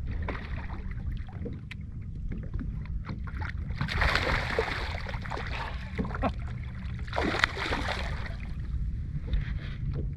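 A hooked largemouth bass splashing at the water's surface beside a boat during the fight, two louder splashes about four and seven and a half seconds in, with water lapping and small knocks over a steady low rumble.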